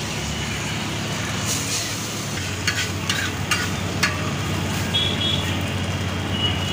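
Food sizzling on a hot flat iron tawa over a steady low rumble, with a few sharp clicks of a metal spatula against the griddle around the middle.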